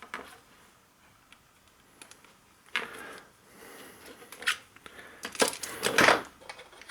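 Clicks, taps and scrapes of small metal parts being handled: a 2 mm Allen key working on a metal lightsaber hilt. The loudest burst of clatter comes between about five and six seconds in.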